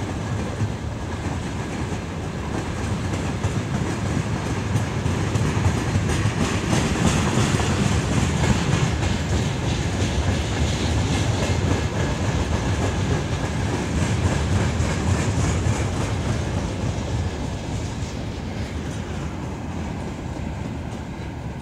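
Freight train wagons rolling past, their wheels clattering over the rail joints. The rumble swells to its loudest in the middle and fades near the end.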